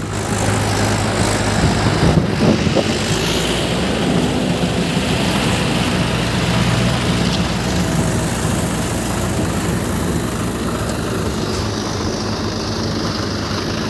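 Swaraj tractors' diesel engines running steadily.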